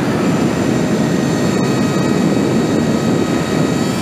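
Wind rushing hard over the microphone while riding a Sur Ron electric dirt bike at speed. The bike's electric drive makes a faint, steady high whine under the wind.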